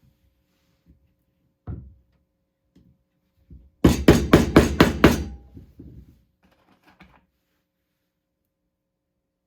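Glued 5/16 inch wooden dowel plugs being tapped into their holes in a wooden shelf: a single knock, then a quick run of six sharp strikes a couple of seconds later.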